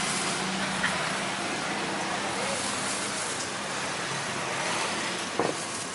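Steady hiss of passing road traffic, with a faint voice in the background. A small tick sounds about a second in, and a short knock comes near the end.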